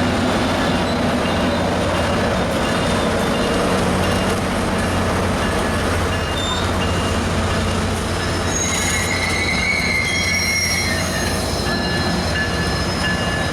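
Tri-Rail commuter train rolling past at close range: a steady, loud rumble of wheels on rail. Thin, high wheel squeals come in a little past the middle.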